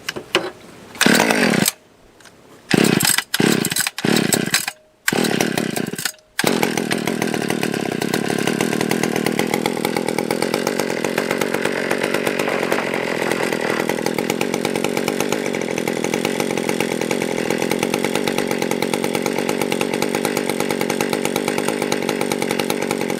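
Stihl 020 AV two-stroke chainsaw engine sputtering in short spurts with dead gaps between them, then catching about six seconds in and running steadily. Its low and high carburettor jets have just been opened for a richer mixture to cure it running lean.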